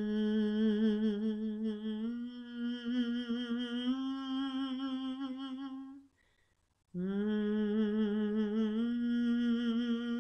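A singer humming on a sustained 'M' with vibrato, rising in steps through a few notes, pausing briefly for breath about six seconds in, then starting the rising phrase again. It is a nasal 'mask' resonance exercise, the hum placed to buzz at the sides of the nose.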